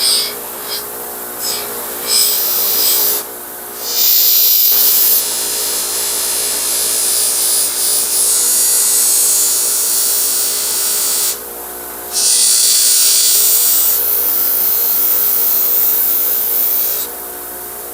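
A power polishing buffer runs steadily while a screwdriver is held against the wheel to polish it. Each contact adds a loud hiss: a short touch about two seconds in, then two long passes, one from about four to eleven seconds and one from about twelve to seventeen.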